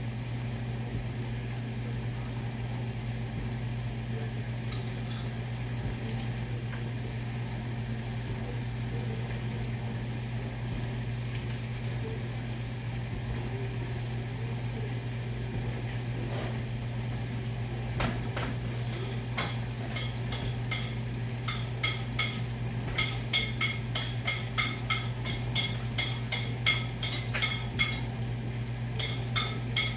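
A steady low hum, then, from a little past halfway, a run of quick, sharp clinks of a metal fork against a ceramic plate, several a second at their thickest, with a brief ringing after each.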